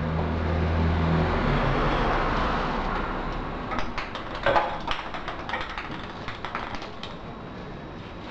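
Light, irregular clicks and taps of a small plastic Kinder Surprise capsule knocked about on a tiled floor by a playing kitten, the loudest about four and a half seconds in. A steady low hum stops about a second and a half in.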